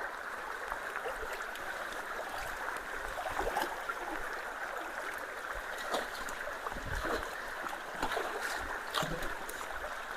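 Water rushing steadily through a partly cleared culvert, with scattered splashes and knocks.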